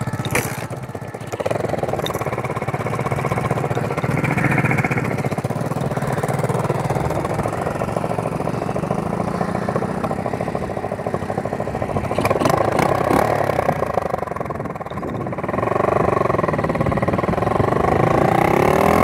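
Single-cylinder four-stroke KXD 125 cc pit bike engine running while ridden, its pitch rising and falling as the throttle is opened and closed, most clearly twice in the second half.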